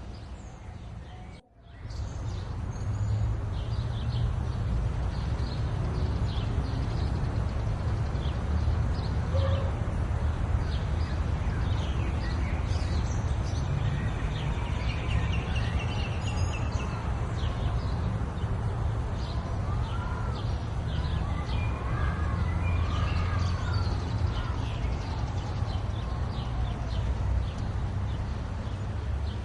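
Small birds chirping, with many short high chirps and, later, a run of repeated rising-and-falling whistled notes, over a steady low rumble. The sound drops out briefly about a second and a half in.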